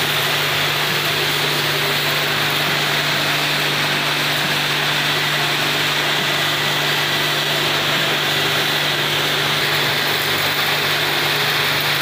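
Air compressor for spray-painting furniture running steadily: a constant low hum under a loud, even hiss.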